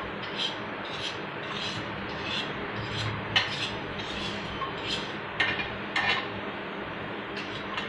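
A small tool scraping and rubbing against a small container in repeated short strokes, roughly two a second, with a sharper click about three and a half seconds in.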